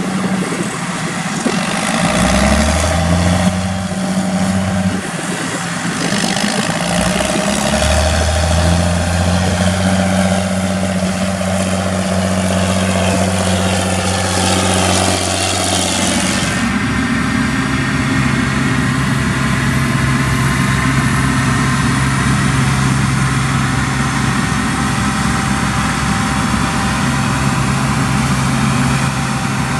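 Heavy farm machinery engine running under load. The low engine note shifts in pitch several times, and about 16 seconds in a high hissing layer stops and the running settles into a steadier note.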